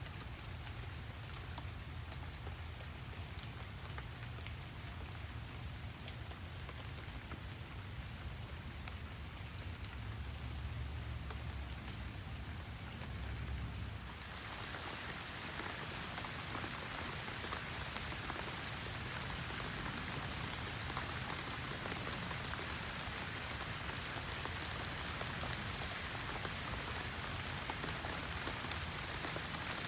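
Steady rain falling, with individual drops ticking, over a low rumble. About halfway through the rain turns heavier and fuller and the low rumble drops away.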